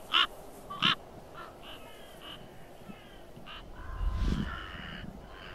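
Crows cawing: two loud, harsh caws in the first second, then a few fainter calls. About four seconds in, a longer call sounds over a low rumble.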